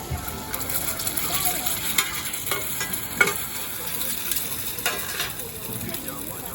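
Oyster omelette frying in a hot pan with a steady sizzle, and a utensil scraping and knocking against the pan several times, sharpest about two and three seconds in.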